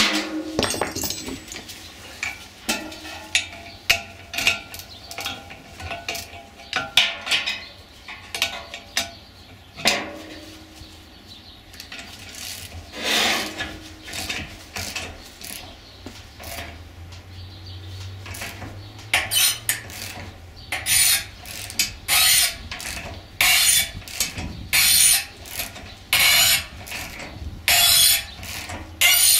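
Socket ratchet wrench clicking in short bursts, about one a second over the last third, as it is swung back and forth against a blower motor shaft seized in the squirrel cage hub. Before that, irregular metal clinks and knocks of the wrenches being fitted and handled.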